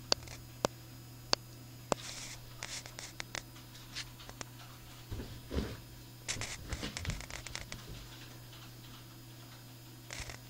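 Paws and claws scratching and rustling on a bedspread as a kitten and a dog spar, in irregular scuffles, with a few sharp clicks in the first two seconds and a steady low hum underneath.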